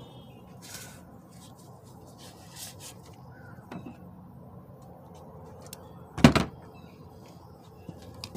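Scattered light clicks and taps over a low steady hum, with one loud knock about six seconds in.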